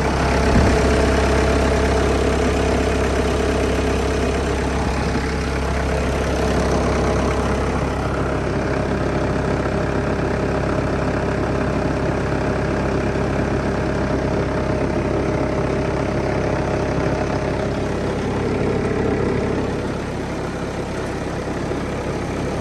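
1999 Bobcat 763 skid steer's diesel engine idling steadily, with its cooling fan turning and drawing air through the engine compartment.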